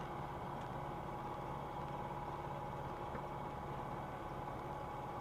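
Flight Design CTSW's Rotax 912 four-cylinder engine idling, a faint, steady hum heard in the cockpit.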